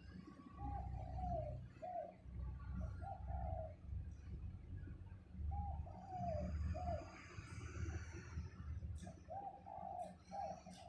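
Pigeon cooing in three phrases of several short, low, wavering notes, over a steady low rumble.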